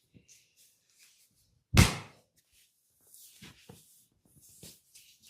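Massage hand sounds: one loud thump about two seconds in, then soft rustling of hands moving over skin.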